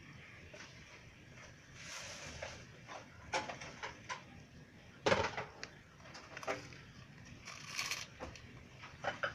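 Scattered light knocks and clicks with rustling, as of objects being handled, the sharpest knock about five seconds in and a short hissing rustle near the end.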